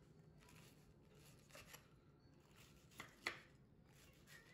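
Kitchen knife cutting through the crisp breading of a fried cutlet onto a wooden cutting board: a few short crunching cuts, the loudest about three seconds in.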